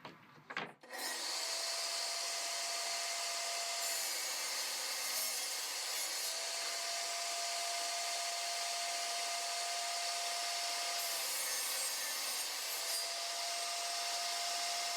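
A power tool working wood, with a steady grinding rush and a steady whine that fades in and out three times.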